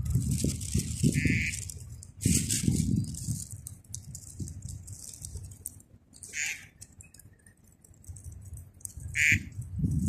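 Low gusts of wind noise on the microphone and crackly rustling, loudest in the first three seconds, with a few short bird chirps: one about a second in, one past the middle, and one near the end.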